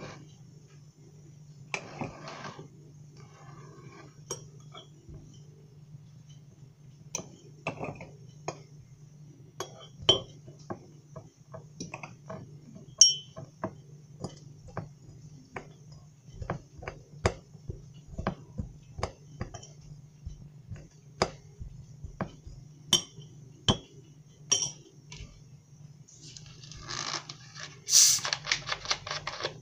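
Metal spoon stirring in a glass mason-jar mug, clinking irregularly against the glass many times. Near the end comes a longer, noisier burst of sound as a plastic water bottle is handled and opened.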